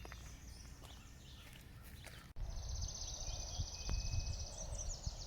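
Footsteps along a forest trail, then, after an abrupt cut about halfway through, a continuous high, rapid trill over low rumbling thumps.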